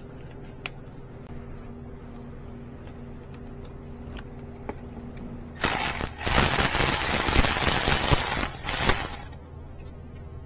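A power ratchet runs for about three and a half seconds, starting about five and a half seconds in, spinning out a 12 mm bolt.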